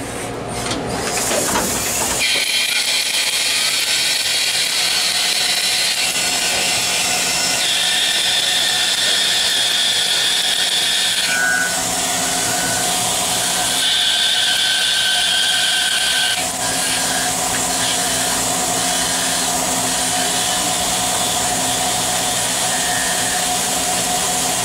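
CNC lathe running, spindle turning a metal bar while the tools cut it, a steady machining noise with a low hum. A high-pitched whine rises over it twice, about a third of the way in and again just past halfway, each time for a few seconds.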